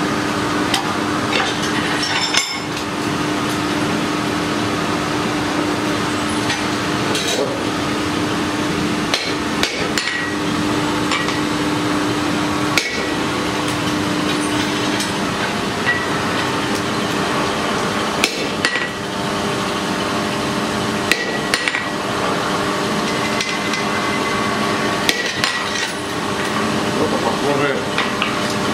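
Blacksmith's hammer striking hot steel in rapid, continuous blows while shaping a small forged figure. A steady hum runs under the blows for roughly the first half.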